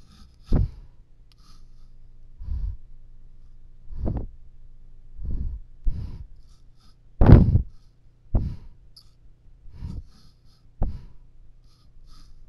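A moose breathing and sniffing right at the camera, its muzzle against the lens: a string of short, gusty breaths about every one to two seconds, the loudest about seven seconds in.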